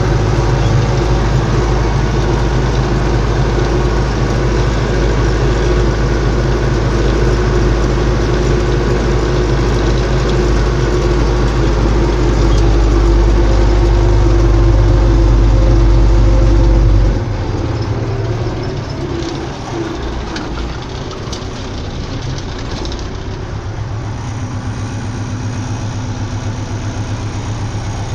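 MTZ-82 tractor's four-cylinder diesel engine running steadily under load while pulling a seedbed combinator, heard from inside the cab. A little over halfway through the sound drops suddenly and the engine runs on more quietly.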